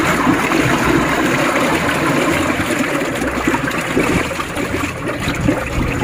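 R410A refrigerant gas bubbling and gurgling out of a charging hose held under water in a bucket, a continuous churning of bubbles as the air conditioner's refrigerant is slowly vented.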